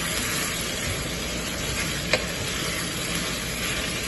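Ground beef and onion sizzling in a nonstick frying pan while a wooden spatula stirs and breaks up the meat, with one light knock of the spatula against the pan about two seconds in.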